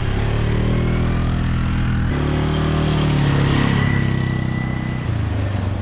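Vehicle engines running as an ATV and a pickup drive along a gravel road. About two seconds in the sound changes abruptly to a GMC pickup truck driving towards the listener, its engine steady and tyres on gravel.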